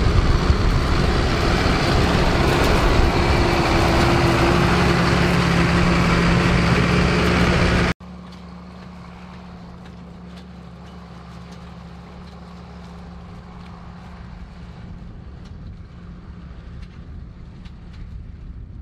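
John Deere 7810 tractor's six-cylinder diesel running loud and close while pulling a 6 m spring-tine cultivator. About eight seconds in the sound cuts off abruptly to a much quieter, steady engine hum.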